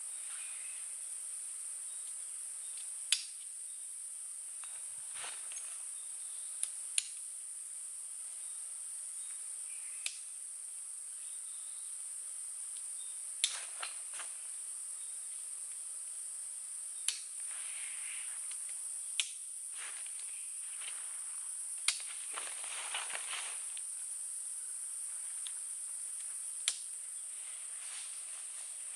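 Steady high-pitched drone of insects, crickets or cicadas, with about nine sharp clicks or snaps scattered through and a brief rustle a little past two-thirds of the way in.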